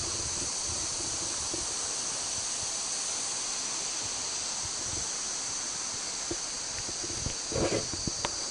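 Steady, high-pitched chorus of insects buzzing in the bush, over a soft wash of wind. A few short knocks and rustles come near the end.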